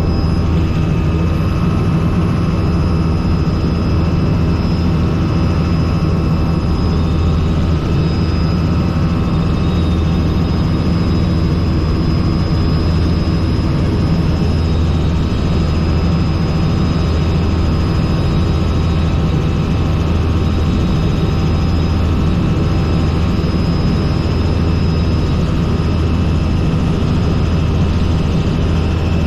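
Robinson R44 helicopter in steady flight: its piston engine and rotor make a constant low drone that does not change.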